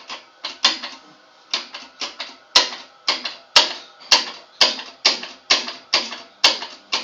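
Pull-cord light switch clicking over and over, about two clicks a second, as its cord is pulled again and again. The switch is faulty and temperamental: the light isn't coming on.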